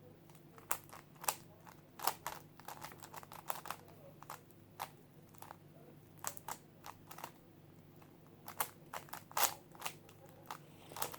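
GAN plastic speedcube being turned fast: irregular flurries of quick clicking and clacking, with short pauses between them.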